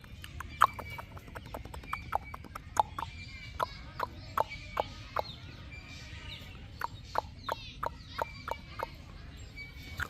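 A string of sharp, irregular clicking knocks, about one or two a second, some in quick pairs.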